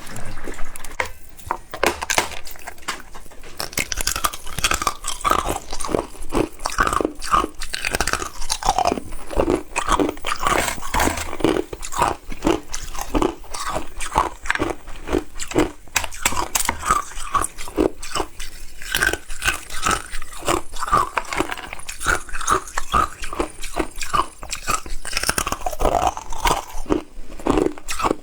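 Ice being bitten and chewed close to the microphone, a dense run of sharp crunches and cracks with short pauses between bites.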